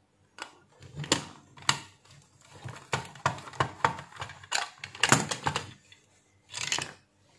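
Plastic case of a DeWalt DW9116 battery charger being opened by hand: a small flat-blade screwdriver works the last case screws, then the top shell is lifted off the base. Irregular plastic clicks and knocks, with a short scrape near the end.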